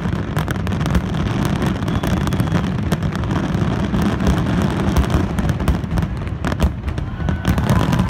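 Dense barrage of aerial firework shells bursting, many sharp bangs a second overlapping into a continuous rumble.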